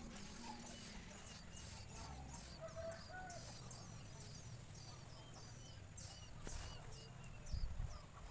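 Birds chirping: a run of short, high, thin notes repeating two or three times a second, with a few softer lower whistled notes, over a low rumble. A couple of dull low thumps come near the end.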